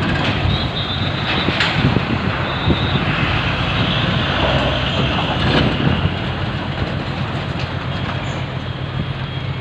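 Steady low rumble of a car ferry's engines heard on board, with a few faint knocks about one and a half seconds and five and a half seconds in.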